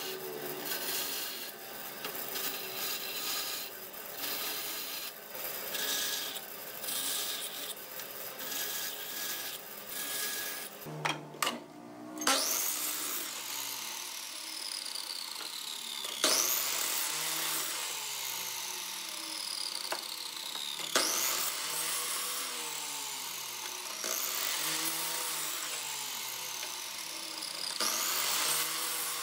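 A band saw cutting small wooden blocks with a steady rasp. About halfway through, a sliding miter saw is switched on and cut through a small block about five times, each cut followed by the blade's whine falling as it coasts down.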